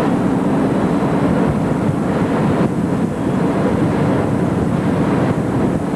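Steady in-flight cockpit noise of a Buccaneer II amphibious ultralight during a dead-stick descent: an even, low drone with rushing air.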